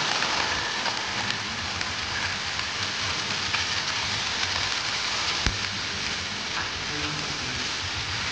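Raw chicken pieces sizzling steadily in hot oil in a nonstick frying pan as they sear, with one sharp tap about five seconds in.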